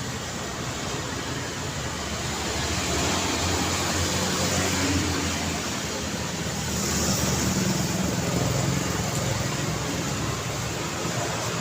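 Busy road traffic: cars and motorbikes passing in a steady stream of engine hum and tyre noise, swelling a little as vehicles go by.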